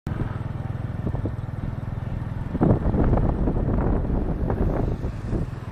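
Motor scooter engines running while riding on the road, with wind buffeting the microphone. The sound grows louder and rougher about two and a half seconds in, for roughly three seconds.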